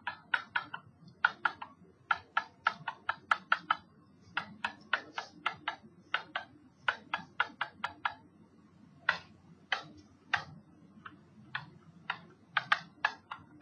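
Stylus tip tapping and clicking on a hard writing surface as equations are handwritten: irregular runs of sharp ticks, several a second, broken by short pauses, more spaced out near the end.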